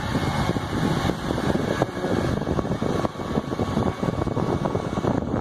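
Steady rushing, buffeting air noise from the small fan of an electric artificial campfire, the kind that blows cloth flames upward, heavy in the low end.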